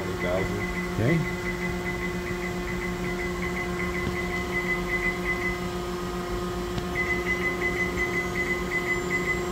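DMG Mori NTX 1000 milling spindle running at high speed: a steady machine hum with several constant tones, over which a high tone pulses rapidly and drops out for about a second past the middle. A brief rising sound comes about a second in.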